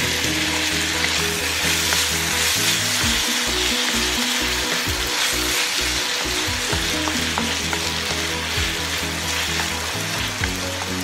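Diced carrots and potatoes sizzling steadily in hot canola oil in a wok as they are stirred, with a few sharp clicks from the utensil against the pan.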